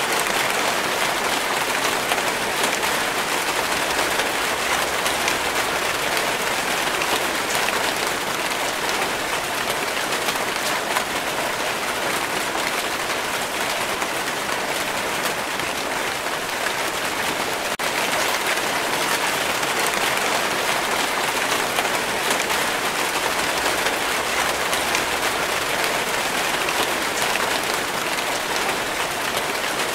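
Steady rainfall: an even, dense hiss of many drops.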